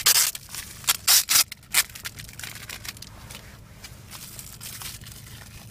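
Clear plastic wrap around a boxed phone crinkling and tearing under the fingers. There are several sharp crackling rustles in the first two seconds, then softer handling of the wrap.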